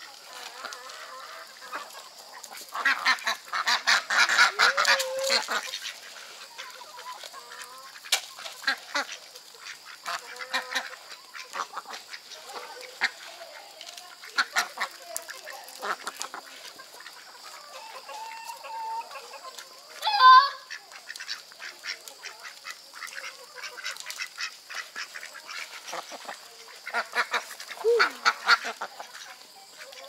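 Domestic ducks quacking in repeated bursts of rapid calls while being fed, loudest a few seconds in and again near the end, with one short loud call about two-thirds of the way through.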